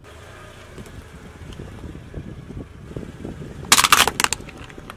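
A car tyre rolls slowly over asphalt with a low rumble and small ticks. About three and a half seconds in comes a quick cluster of loud, sharp plastic cracks as the tyre crushes a hard black plastic cone.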